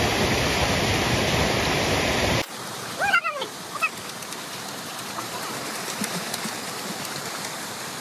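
Waterfall and stream water rushing steadily. The rush is loud at first, then drops abruptly to a quieter steady flow about two and a half seconds in. A brief splash and a short high cry come about a second later.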